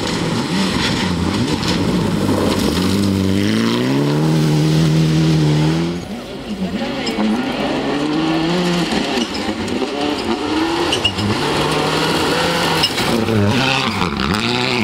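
Rally cars at full effort on a gravel stage: a Mitsubishi Lancer Evolution's engine accelerating hard, its pitch climbing steadily, then after a cut a Skoda Octavia WRC's engine revving up and down repeatedly on and off the throttle through a corner.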